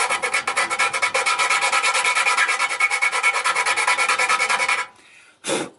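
Hand file rasping in rapid back-and-forth strokes against the edge of a sensor hole in a powder-coated metal bumper, cutting a notch for the parking sensor. The strokes ring with a metallic tone and stop about five seconds in, followed by one short scrape near the end.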